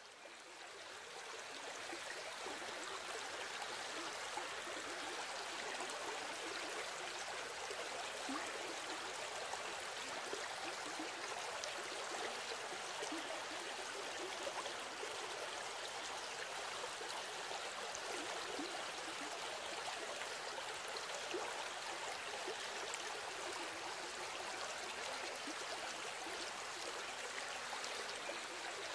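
Steady rushing noise like running water, with small gurgling flecks. It fades in over the first second or two and then holds even.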